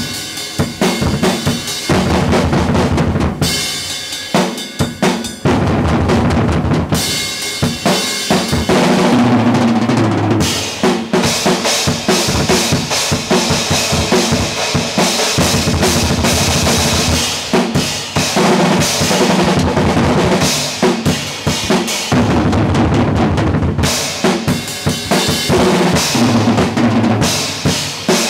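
Acoustic drum kit played hard and fast: rapid strokes around the snare and toms over the bass drum, with cymbals ringing through much of the middle stretch.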